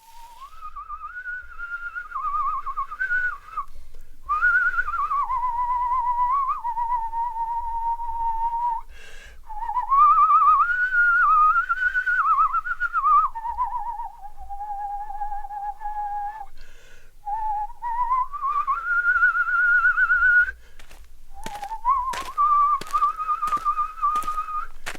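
A person whistling a slow, wavering melody, holding long notes and sliding between them. A few sharp clicks come near the end.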